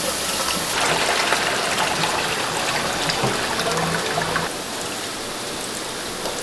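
Tap water running in a steady stream into a large stainless-steel stockpot, filling it. The sound drops in level about four and a half seconds in.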